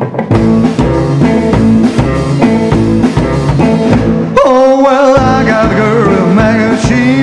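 Rockabilly band playing: hollow-body electric guitar over upright bass and drum kit in a steady rhythm. About halfway through, a singing voice comes in on a held, wavering note.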